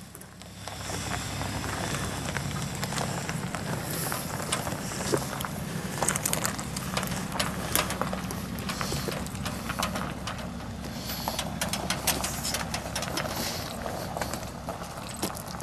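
1981 Dodge Ram D150's 225 cubic-inch slant-six engine running steadily as the truck pulls away down a gravel driveway, with scattered crunches and clicks of gravel.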